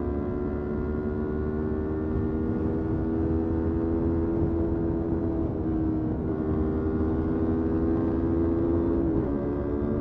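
Motorcycle engine running at a steady pace under way, its pitch easing slightly lower and then dipping briefly about six seconds in and again near the end before picking up.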